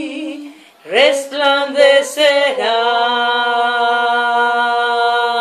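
Women singing a Spanish-language worship song unaccompanied, a cappella. There is a short break about half a second in, then a phrase that ends in one long held note from about halfway on.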